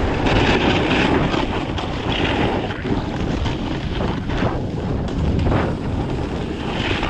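Wind rushing over a GoPro Hero 7's microphone during a fast run down a ski slope: a loud, steady rushing noise that swells and dips.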